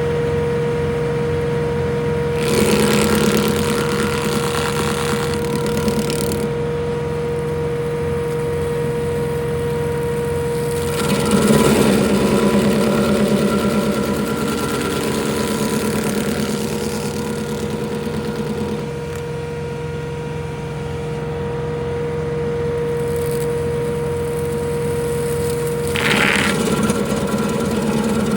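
A John Deere 3039R compact tractor's diesel engine running steadily, driving a Woodland Mills WG24 stump grinder whose cutting wheel bites into a stump in three spells of louder, rougher grinding: from about two to six seconds in, from about eleven to nineteen seconds, and again near the end.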